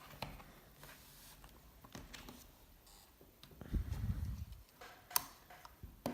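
Faint handling noise: scattered light clicks and taps, a low rumbling bump about four seconds in, and a sharp click about five seconds in.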